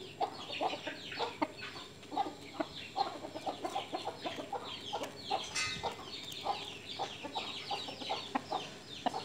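Rooster clucking in short, quick calls, several a second, with higher, short chirps among them.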